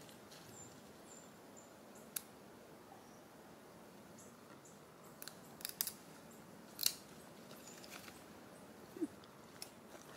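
Scattered sharp crackles and snaps of dry leaf litter and twigs under long-tailed macaques moving on the forest floor, a few single ones and a quick cluster, the loudest about seven seconds in.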